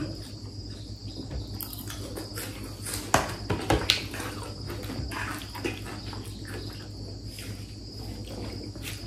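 A few sharp clicks of metal forks against ceramic plates while eating noodles, the clearest about three and four seconds in, over a steady high-pitched whine and a low hum.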